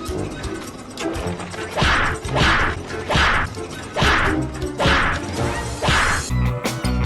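Edited-in sound effects: a run of six even whooshes about 0.8 s apart over background music, with a switch to a different music track near the end.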